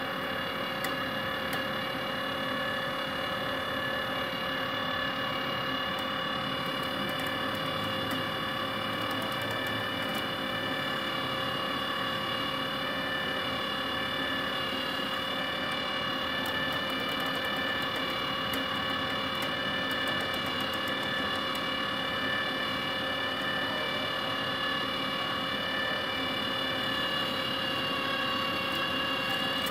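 Wire-feed motor of a Multipro MIG-MAG 200G-SP MIG welder running steadily at full speed, a constant whine with no change in pitch, as it pushes solid welding wire through the torch cable to thread it to the tip.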